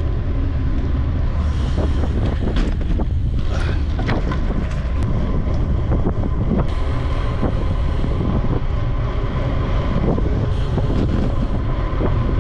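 Wind buffeting the microphone of a camera riding low along a street, over a steady low rumble from the ride, with scattered light clicks and rattles.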